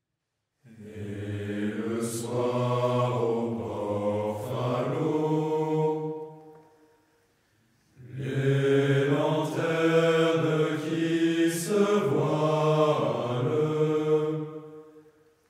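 Choir singing a slow French song in low voices, in two long phrases with a short break of about a second and a half between them.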